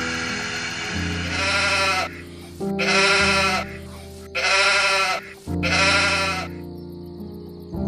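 Four quavering bleats, each under a second long and evenly spaced, over steady background music.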